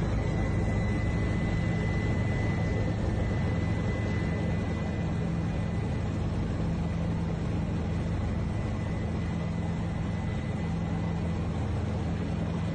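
Loud, steady engine drone with rushing air, heard from inside an army aviation aircraft over the desert, with a faint high whine through it.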